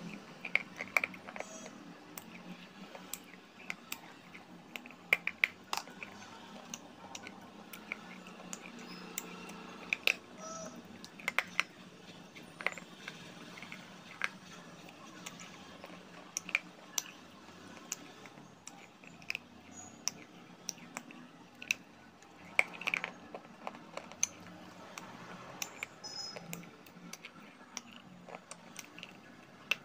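Hollow dried-clay ball being bitten and chewed close to the mouth, making irregular sharp crunches and cracks of clay breaking between the teeth.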